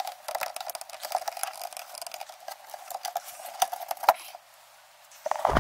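Small clicks and clatter of hard plastic and metal parts being handled as a fish finder mount and gauge panel are worked loose on a boat dashboard, with two sharper knocks about three and a half and four seconds in, stopping shortly after.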